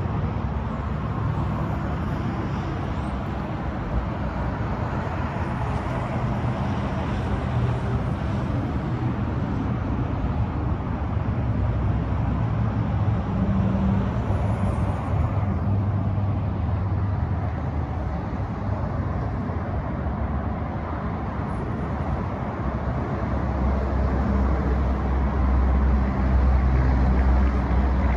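Steady outdoor traffic noise, a low rumble under a hiss, growing louder near the end.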